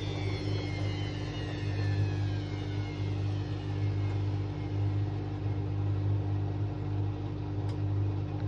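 Hotpoint Aquarius WMA33 washing machine running: its motor whine falls in pitch and fades over the first few seconds as the machine slows, over a steady low hum that swells and eases in a slow rhythm.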